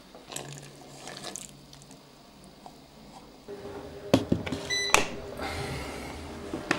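Clatter and sharp knocks of a bread machine being handled, the two loudest knocks a little past halfway. A short electronic beep from the machine's control panel sounds just before the second of them.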